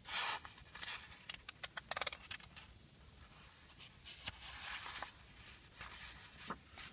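Pages of a paper picture book being turned and handled: a soft swish of paper at the start, then a run of light clicks and taps, and more quiet rustling a few seconds later.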